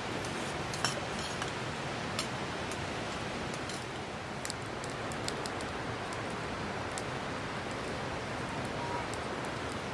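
Steady rushing noise with scattered faint ticks.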